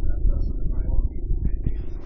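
Hörmann E57 electromechanical motor siren sounding a steady tone, with a low rumble and knocks underneath.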